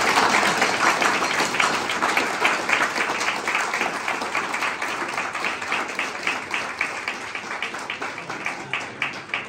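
Audience applauding for an award winner, loudest at the start and gradually dying away near the end.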